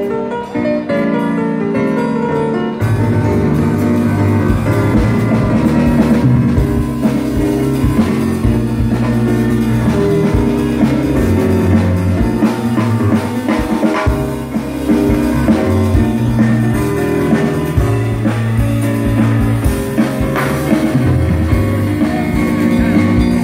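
Live instrumental music from an electric keyboard, with bass and drums joining in about three seconds in and playing on together.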